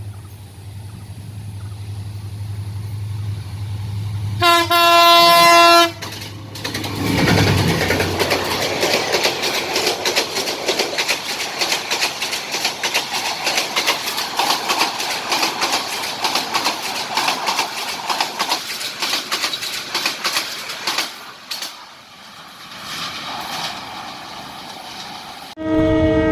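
Diesel locomotive hauling an intercity passenger train: its engine hum grows as it approaches, and it sounds its multi-tone horn once for about a second and a half, about four seconds in. The train then passes close by, with a rapid clickety-clack of the coaches' wheels over the rail joints that fades away after about fifteen seconds. Near the end, a locomotive horn sounds again and keeps going.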